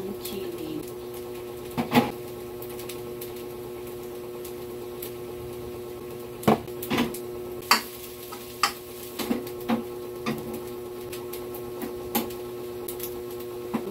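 Cookware being handled over a stove: a jar and utensils knock and clink against pans a dozen or so times, most of them in a cluster in the middle, over a steady mechanical hum.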